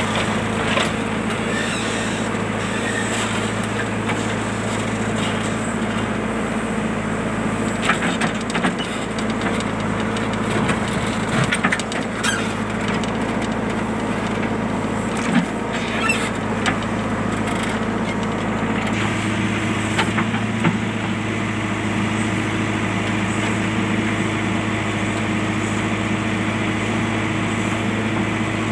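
A JCB machine's diesel engine running steadily, with scattered sharp knocks and clanks in the middle stretch. About two thirds of the way through, the engine note changes and then holds steady again.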